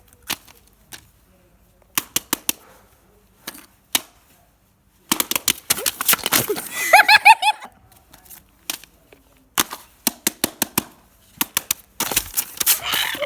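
Irregular sharp clicks and snaps from fidget toys being handled and pressed, bunched more densely about five seconds in and near the end, with a short burst of laughter about seven seconds in.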